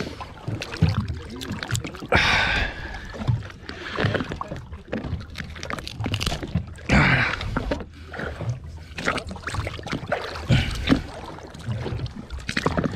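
Water splashing and sloshing at the boat's side as a caught fish is held in the water by hand, with scattered handling knocks. Two louder splashes come about two and seven seconds in.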